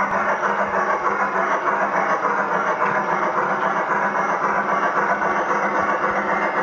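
Simulated steam chuffing from the old Sierra sound system in a battery-powered 1:32 Accucraft K27 model locomotive, a quick, even pulsing as the model runs fast, over a steady hum. The owner says the sound system is not quite set up right.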